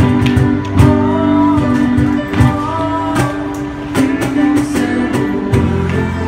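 A small live band playing: electric bass, keyboard and electric guitar, with a melody line rising and falling above them.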